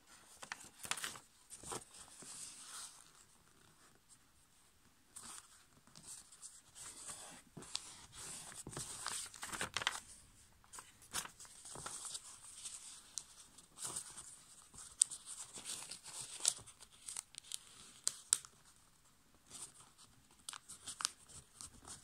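A sheet of A5 copy paper being folded and creased by hand into a paper airplane: irregular rustling and crinkling with sharp crackles as folds are pressed flat, broken by a couple of quieter pauses.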